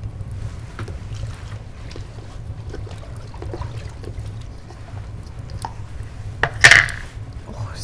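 Foot scrub being scooped and worked by hand: soft wet handling sounds over a steady low hum, with one short loud wet burst near the end.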